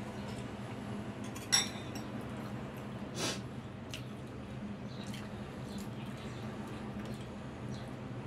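A metal spoon and fork clink against a ceramic soup bowl while eating. There is one sharp, ringing clink about a second and a half in, a short rushing scrape around three seconds, and a few light taps after that, over a steady low hum.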